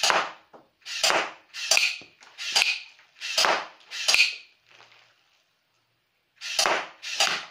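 Recoil-action Glock 18 gel blaster firing single shots, a sharp clack each: six or seven shots less than a second apart, then a pause of about two seconds and two more near the end.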